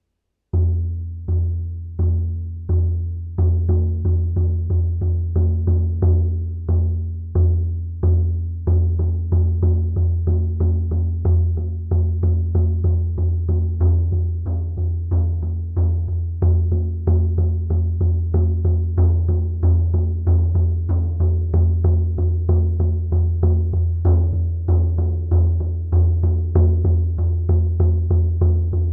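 A 20-inch oval goat-skin shaman frame drum struck with a sound-healing drum beater in a steady beat. Each stroke is a deep boom that rings on into the next. The first few strokes come about every two-thirds of a second, then the beat quickens from about four seconds in.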